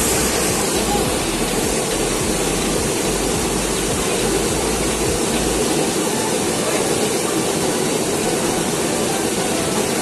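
Small waterfall pouring into a pool: a steady rush of falling water, with a low rumble beneath it that drops away a little past halfway.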